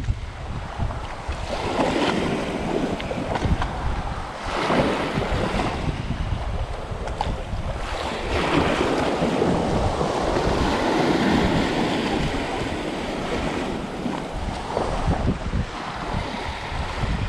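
Small waves washing over a shallow sandbar and running back, in several surges with the longest about halfway through, over a steady rumble of wind on the microphone.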